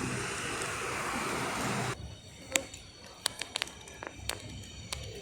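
Steady rushing noise of a train moving at a station platform, cutting off suddenly about two seconds in, followed by quieter platform background with scattered clicks and knocks.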